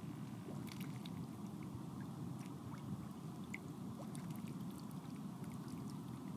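Flowing river water: a steady low rush with scattered small drips and light splashes.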